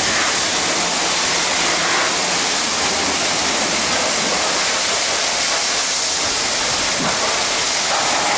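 High-pressure water jet from a car-wash wand spraying over a soaped car body, a steady loud hiss.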